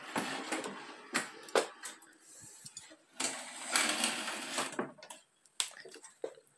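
Handling noise: two stretches of scraping and rubbing with a few sharp clicks in between, as the DVD player and camera are moved around on the desk to show the back panel.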